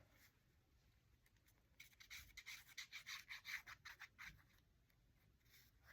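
Faint rubbing and scratching of paper being handled, a quick run of short strokes from about two seconds in to just past four seconds.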